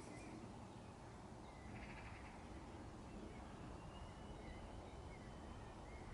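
Faint outdoor ambience: a steady low rumble, with a short bird call about two seconds in.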